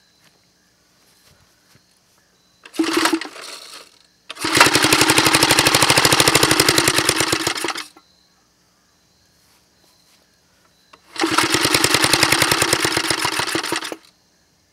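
A small gasoline piston-valve engine runs in two short bursts of rapid, even firing, each lasting a few seconds and cutting out abruptly, with a short burst of noise before the first. The running is brief and unsteady, which the builder puts down to the piston valve not being open quite enough.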